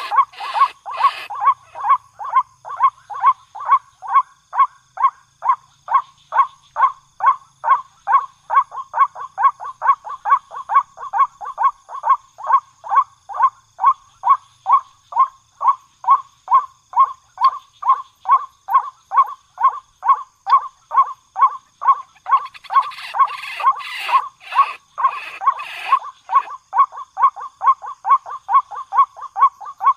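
White-breasted waterhen calling: one short call repeated at a steady pace, about three a second, without a break. A few seconds of crackling noise come in over it late on.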